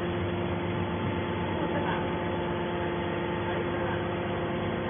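Hydraulic scrap-metal baler's power unit running: a steady machine hum with several held tones, the electric motor and hydraulic pump turning over evenly.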